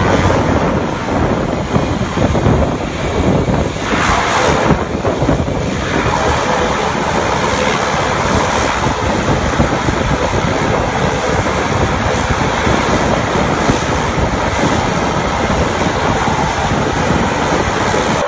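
Single-engine floatplane's engine and propeller running steadily as it taxis on the water, mixed with heavy wind buffeting the microphone.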